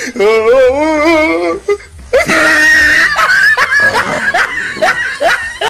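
Person laughing: a long wavering laugh, then a shrill squeal, then a string of short rising 'ha' sounds about three a second.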